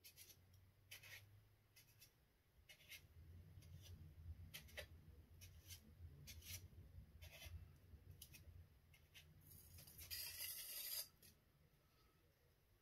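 Near silence: the faint low rumble of a hand-turned painting turntable, with a few soft ticks and a brief rustle about ten seconds in.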